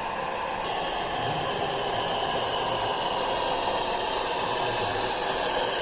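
Gauge 0 model train running on the layout track: a steady rushing running noise that gets a little louder about a second in.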